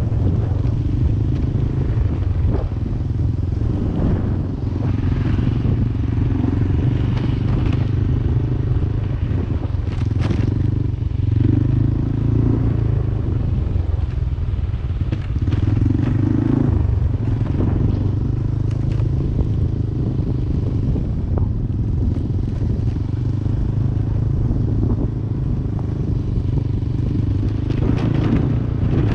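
Yamaha Aerox 155 scooter's single-cylinder engine running steadily while riding at low speed. A higher engine note comes in twice in the middle. There are occasional clicks and rattles from the bike on the rough road.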